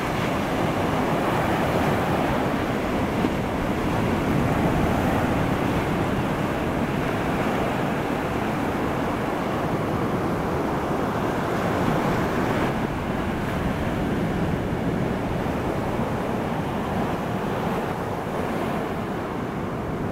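Strong ocean surf breaking and washing up a sandy beach: a continuous rush of waves, swelling slightly in loudness as each wave breaks.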